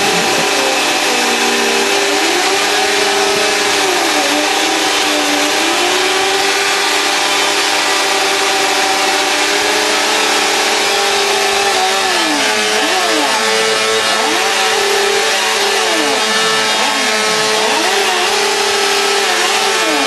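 Sport motorcycle engines revving hard during a stationary burnout, running high and constant over a loud rushing noise. In the second half the pitch swings up and down over and over as the throttle is blipped.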